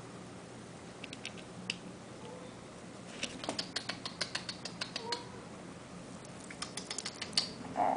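Light, quick clicking and tapping in three short runs, about a second in, through the middle, and near the end: hairless kittens' claws and paws scrabbling on a plastic bin and among toys.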